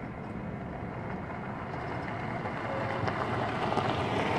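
Pickup truck driving past on a dirt road, its engine and tyres on the gravel growing louder as it comes close.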